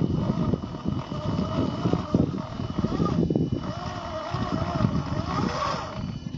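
Electric drive of a 1/10-scale RC rock crawler, a 50-turn motor and its gearbox, whining with a pitch that wavers up and down with the throttle and breaks off briefly about halfway through. Under it are crunching and knocking of the tyres and chassis on rock as it climbs.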